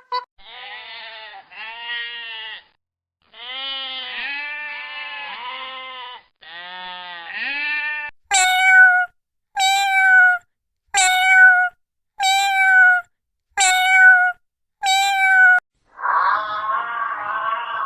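Domestic animal calls, one after another: first several wavering, pitch-bending calls, then six short, evenly spaced calls about a second and a half apart, and a harsher drawn-out call near the end.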